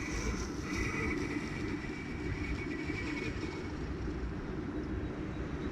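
The dual brushless motors of an H2C off-road electric skateboard running with a thin high whine, which fades out about three seconds in, over a steady low rumble.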